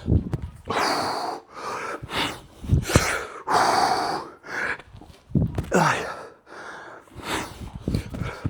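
A man breathing hard through exercise repetitions: a run of forceful exhales and gasping breaths, one with each rep, some with low thuds beneath them.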